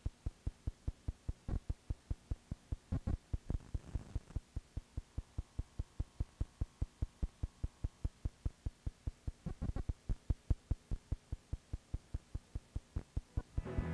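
Low, even throbbing hum pulsing about four times a second, a playback noise from a VHS tape.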